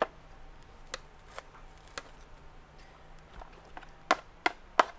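Spoon knocking against a pot and dog dish as cooked dog food is dished out: scattered sharp taps, the loudest three close together near the end.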